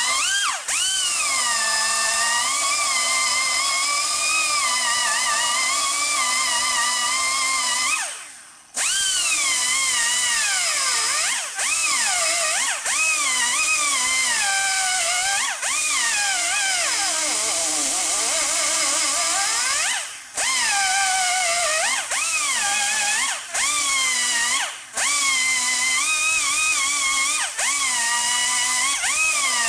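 A high-speed power cutting tool cutting metal. Its whine rises and falls in pitch as the load changes, over a steady hiss. It stops briefly several times, the longest break about eight seconds in.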